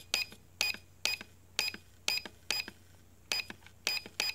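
ProMark VR drone's camera tilt motor stepping in a string of short, high buzzy chirps, about two a second, as the camera angle is changed. This buzz is the motor noise the camera keeps making after an angle change until it is reset.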